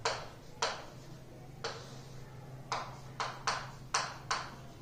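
Chalk writing on a chalkboard: about eight short, sharp scratching strokes at an uneven pace, coming closer together after about two and a half seconds as the letters of a word are written.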